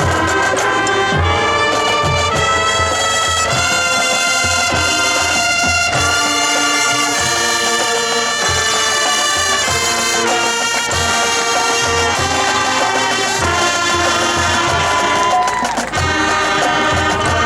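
Marching band playing: full brass chords, trumpets and trombones, over regular bass-drum beats.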